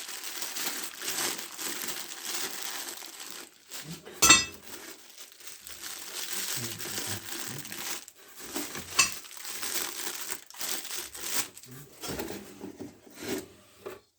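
Packaging being unwrapped: plastic wrap and bags crinkling and rustling almost without pause, with a sharp knock about four seconds in and a lighter one about nine seconds in as parts are handled.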